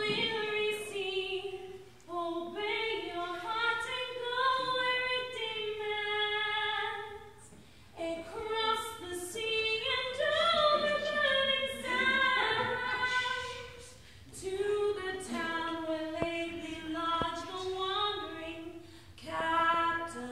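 Unaccompanied singing by women's voices, a melody sung in phrases of a few seconds with brief pauses between them.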